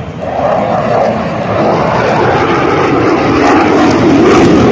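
Delta-wing fighter jet flying past: a loud engine roar that swells a fraction of a second in and keeps building, its pitch sliding down toward the end.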